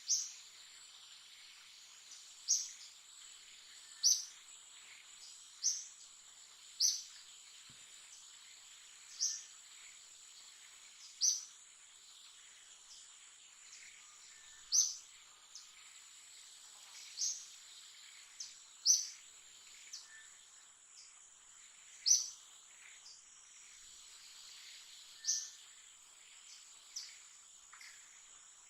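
Steady high-pitched insect drone with a short, sharp, falling chirp repeating every one to three seconds.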